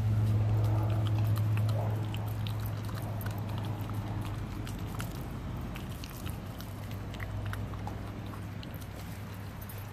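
Bulldogge puppy gnawing and crunching a frozen half fish, with many short, irregular crunches and clicks of teeth on frozen flesh and bone. A steady low hum runs underneath, louder for the first two seconds, then fading.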